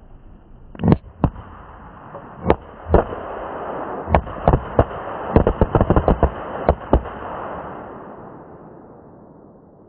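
An irregular string of about fifteen sharp firecracker bangs over some six seconds, above a steady hiss that fades away near the end. The bangs come from a cannonball firework that has burst open and thrown out its firecrackers.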